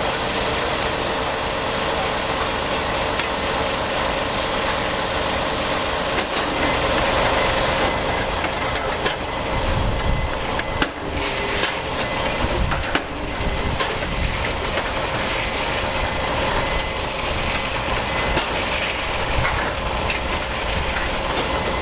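Steady machinery running in a precast concrete yard, a continuous dense noise with a faint constant whine, and a few sharp knocks around the middle.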